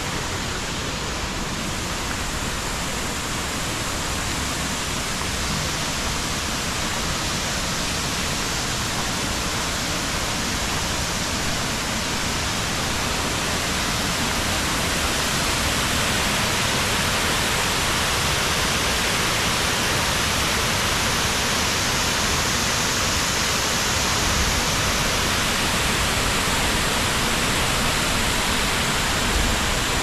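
Steady rush of a small waterfall pouring over a rock ledge into a creek pool, a continuous even wash of water noise that grows slightly louder over the first half.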